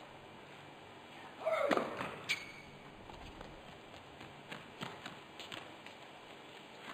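Tennis ball bounced on an indoor court by a player readying to serve: light taps a few tenths of a second apart in the second half. Before them, about a second and a half in, a brief pitched squeal and then a single sharp knock.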